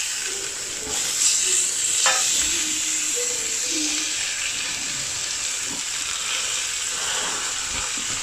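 Stuffed peppers sizzling steadily on a hot ridged grill pan, with a few light knocks of a metal spatula against the pan about one and two seconds in as they are turned.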